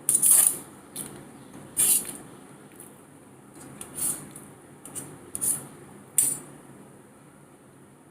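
Eating sounds: a string of short, sharp noises, about seven in six seconds, the loudest right at the start and another at about two seconds.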